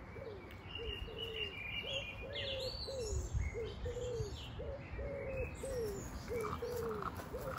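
A pigeon cooing in a steady run of low notes, about two a second, while small birds chirp higher over it.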